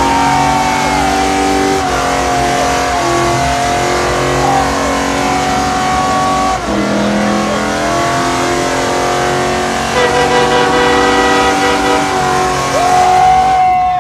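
A car's engine held at steady high revs, its pitch shifting suddenly a few times, with a higher wavering squeal over it.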